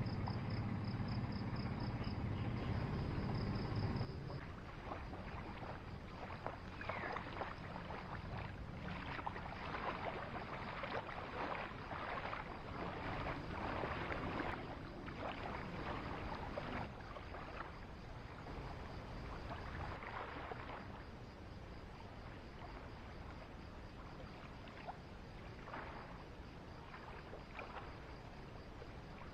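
Shallow sea water splashing and lapping as people wade, an uneven rough noise with many small splashes. For the first four seconds an insect chirps in fast pulses over a low steady hum; both cut off suddenly.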